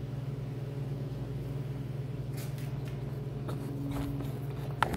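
Steady low electrical hum, with a few faint knocks and a sharp click near the end from the recording phone being handled.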